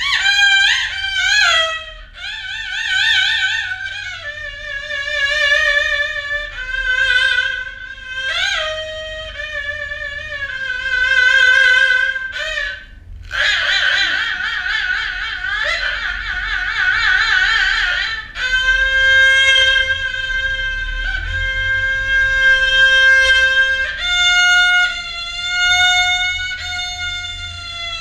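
Haegeum, the Korean two-string bowed fiddle, playing the slow jinyangjo movement of a sanjo: long held notes with wide, wavering vibrato and sliding pitch bends between them.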